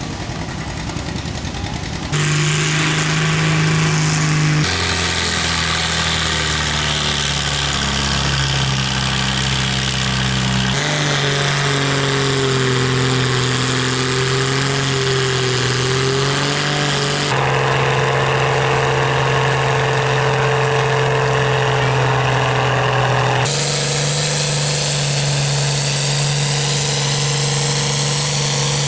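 Old tractor engines idling and running steadily, in a string of short clips whose hum changes pitch abruptly at each cut, about every few seconds.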